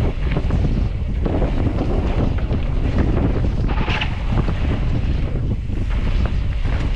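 Wind buffeting the microphone of a camera riding on a mountain bike down a dirt trail, with a constant low rumble and rattling of the bike over the bumps.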